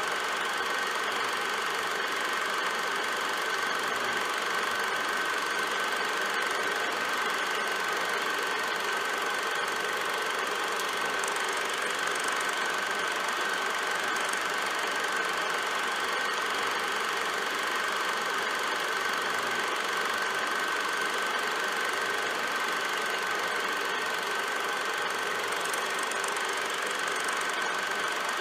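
Film projector running: a steady mechanical whir with a constant high-pitched tone, unchanging throughout.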